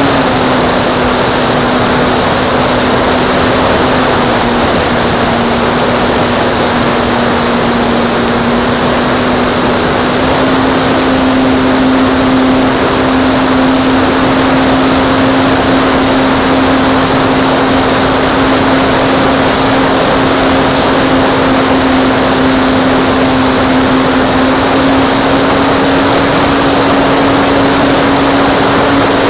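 RC model airplane's motor and propeller running steadily, its pitch dipping slightly and rising again a few times as the throttle changes.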